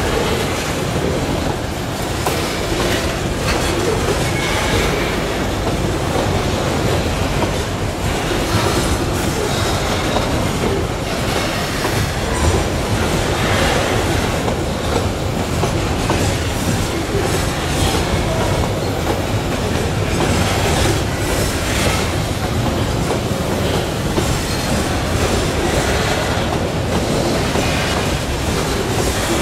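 Hopper wagons of a long Babaranjang coal train rolling past, with a steady, unbroken noise of steel wheels running over the rails.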